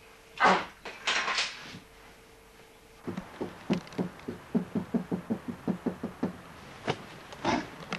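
Knuckles knocking on a house window, a quick run of fifteen or so knocks at about five a second, beginning about three seconds in. Two short loud sounds come before it in the first two seconds.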